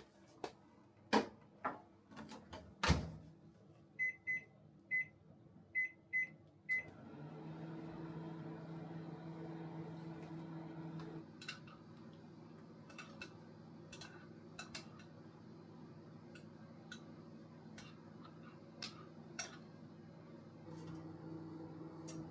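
Microwave oven being started: a few knocks as the door shuts, six short keypad beeps, then the oven running with a steady low hum. The hum drops about eleven seconds in, returns near the end, and has scattered light ticks over it.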